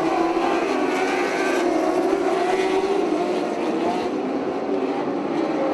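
A pack of winged mini sprint race cars running at speed together on a dirt oval, their engines overlapping in a steady, loud drone that rises and falls slightly in pitch.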